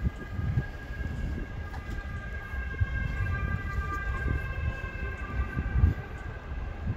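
A passing vehicle: a steady high whine of several tones, strongest in the middle, over a continuous low rumble.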